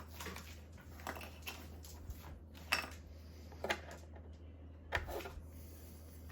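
Small printed-plastic model parts being handled and sorted, with scattered light clicks and taps against each other and the work surface, over a steady low hum.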